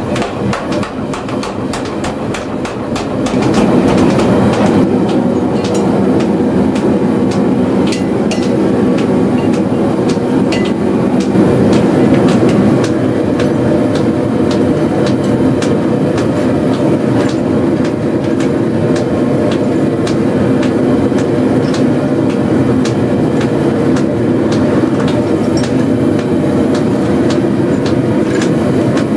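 Mechanical power hammer striking a hot railroad spike in rapid blows for the first few seconds, then a steady loud mechanical roar with occasional sharp metal clinks.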